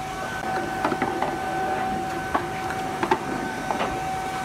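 A few light, scattered knocks of a mini-golf putter and ball against the course's wooden rails and obstacles, over a steady mechanical hum.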